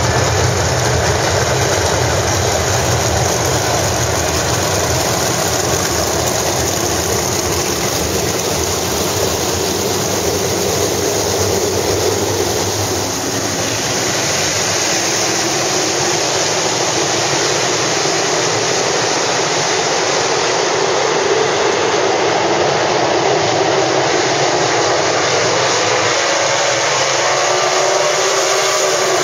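A full field of World of Outlaws sprint cars, their 410 cubic-inch V8 engines running together as a loud, steady pack. Near the end the engines rise in pitch as the cars speed up and race.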